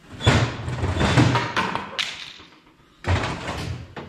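Metal clunks and a clatter from handling the just-removed cylinder head and head gasket of a 12-valve Cummins diesel, with several knocks in the first two seconds and another about three seconds in, likely the gasket landing on the concrete floor.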